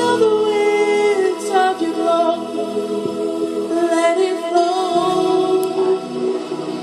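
Women singing gospel worship, their voices holding and gliding between notes over sustained keyboard chords.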